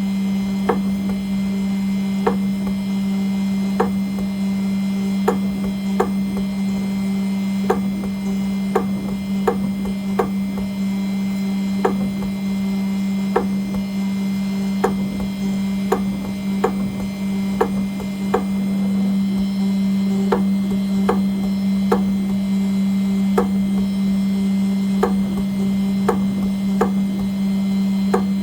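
CNC engraving machine cutting an aluminium nameplate: a steady low hum from the running spindle, with sharp clicks repeating evenly about every three-quarters of a second.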